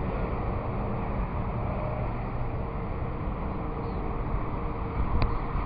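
Steady low rumbling background noise with a faint hum running through it, and a single sharp click near the end.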